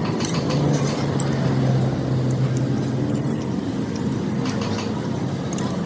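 Steady background noise with a low engine hum for a couple of seconds, typical of a passing motor vehicle, and scattered light clicks.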